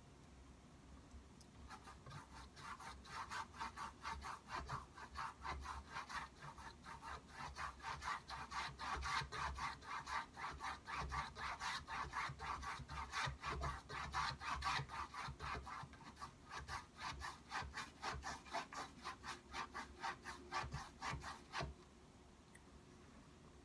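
Paintbrush brushed rapidly back and forth across a stretched canvas, working in oil paint, at about four strokes a second. It starts about a second and a half in and stops abruptly near the end.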